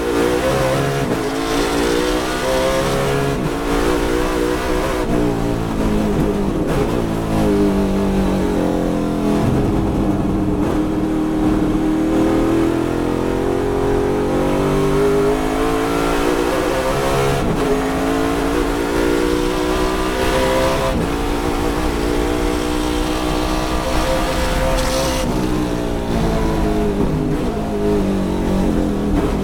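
Ford Mustang race car's V8 engine at racing revs, heard from inside the cockpit, its pitch climbing under acceleration and dropping back again and again through gear changes and corners.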